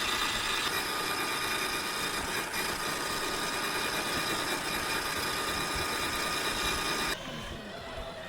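Electric motor and gear train of a radio-controlled scale rock crawler whining steadily at a high pitch as it drives, cutting off abruptly about seven seconds in.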